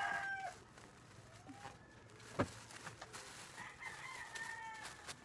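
A rooster crowing: the end of one crow at the very start, and a second crow of about a second and a half beginning about three and a half seconds in. A single sharp click comes about halfway through.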